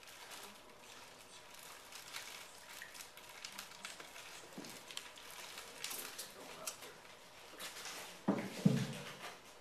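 Faint clicks, taps and rustles of hands fiddling with small objects, with a single louder low thump near the end.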